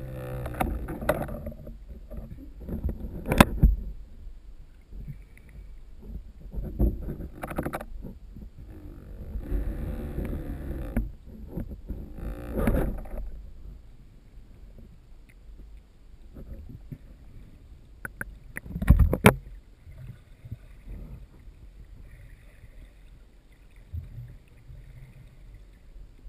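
Muffled underwater water noise through a camera housing as a diver swims: a low rumble with swells of rushing, swishing water. There are a few sharp clicks or knocks, one a few seconds in and a cluster past the middle, and the last third is quieter.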